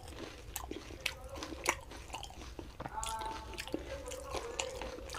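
Close-up eating of fuchka (panipuri): several sharp crunches as the crisp hollow puri shells are bitten, with wet chewing in between.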